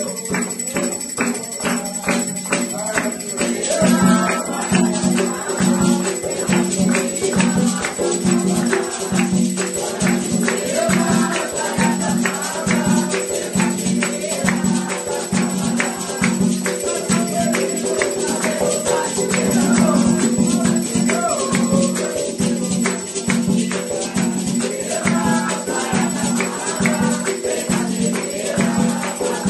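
A group of voices singing an Umbanda ponto (devotional chant) for Oxóssi, with a steady drum beat and hand clapping keeping time, and a jingling percussion like a tambourine or shaker on top.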